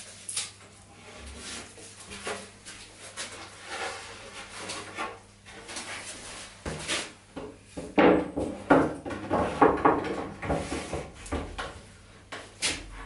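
Wooden pieces being handled on a wooden workbench: scattered knocks, taps and scrapes of wood on wood, busiest in the second half.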